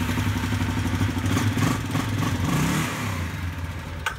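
ATV engine running, with the drive pulleys of its open CVT spinning. Its pitch rises briefly and falls again about two and a half seconds in, then the sound drops away near the end, ending in a click.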